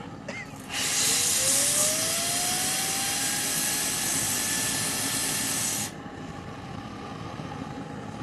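Homemade axial jet engine spinning up in a loud rush of air: a steady hiss starts about a second in and cuts off suddenly about six seconds in, while the rotor's whine rises in pitch, then holds steady and carries on faintly after the hiss stops.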